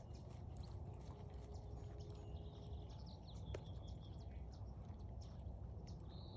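Faint hoofbeats of a horse working on grass, with a steady low rumble underneath. Birds chirp now and then.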